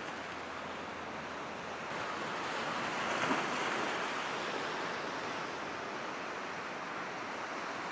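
Ocean surf: waves washing onto a sandy beach as a steady rush, swelling to its loudest about three seconds in.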